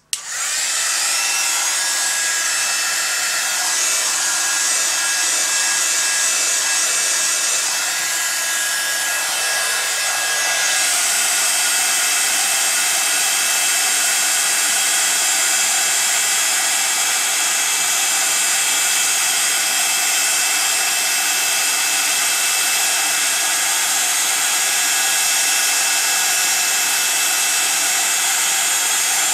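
Craft embossing heat gun switching on and running steadily, its fan blowing hot air to melt embossing powder on acetate. A thin whine in the blowing noise drops out about ten seconds in, and the hiss gets a little brighter.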